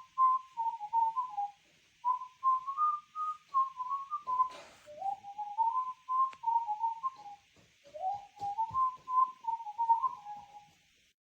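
Pets Alive Chirpy Birds electronic toy bird playing one of its whistled tunes through its small speaker: a single line of quick hopping notes in four short phrases, over a faint hiss. A click about four and a half seconds in, and the tune stops just before the end.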